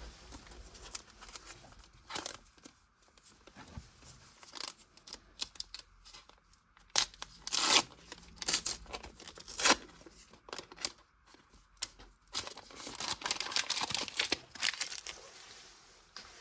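Topps Match Attax trading card packets being torn open by hand, in a series of sharp rips, followed by a longer stretch of wrapper crinkling.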